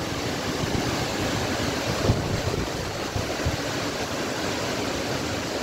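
Strong, steady dust-storm wind rushing through trees, with gusts buffeting the microphone in low thumps, the strongest about two seconds in.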